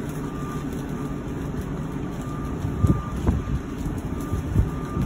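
A vehicle's reversing alarm beeping about twice a second over a steady low engine rumble. A few knocks about three seconds in and again near the end.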